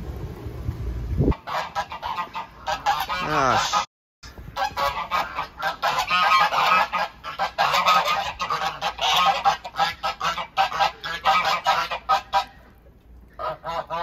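A flock of white domestic geese honking loudly, many calls overlapping in quick succession, thinning to a few last honks near the end. For about the first second, wind gusting across the microphone.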